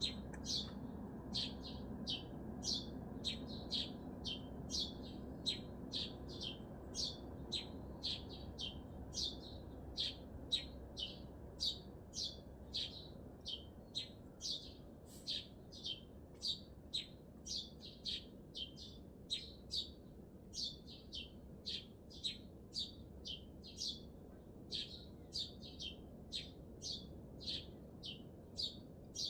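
A small songbird repeating one short, shrill chirp over and over, about one and a half times a second. Beneath it runs the steady low hum of city traffic.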